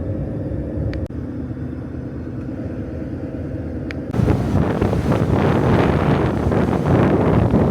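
Vehicle engine droning steadily with a constant road rumble. About four seconds in, this abruptly gives way to louder, rough wind and road noise.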